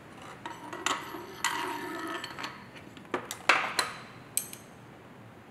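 Steel gears and the synchro hub of a straight-cut four-speed gearbox clinking and sliding on the splined mainshaft as they are handled. Several sharp metallic clinks with a brief ring; the loudest comes a little past halfway.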